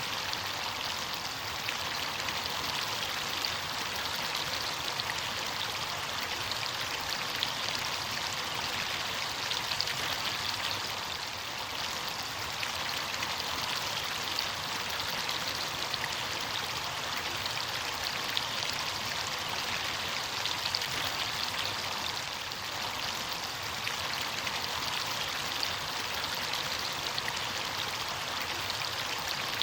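Running water of a stream flowing steadily, an even rushing with many small splashes throughout.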